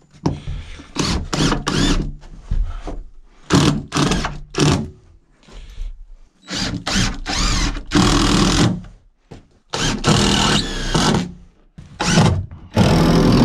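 Power drill running in short bursts of about a second each, mixed with sharp knocks and clatter of lumber being handled.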